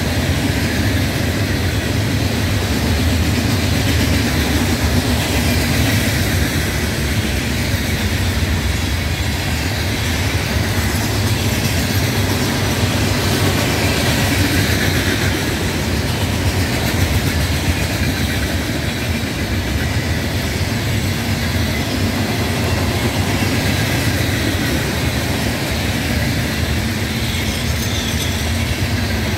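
Coal train rolling past, a steady, continuous rumble of steel wheels on the rails.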